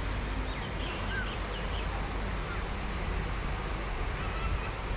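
Steady rushing outdoor noise, heaviest in the low end, with a few faint bird chirps about a second in.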